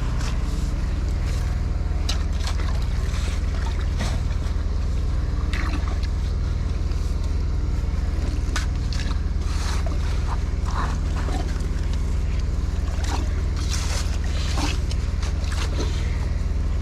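A machine engine running steadily with a low drone, with scattered knocks and scrapes throughout.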